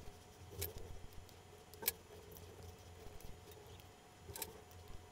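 A few faint, sharp clicks and light handling noises from a tiny screwdriver and a small plastic wire connector being worked by hand, as its crimped pins are pushed and wires re-seated.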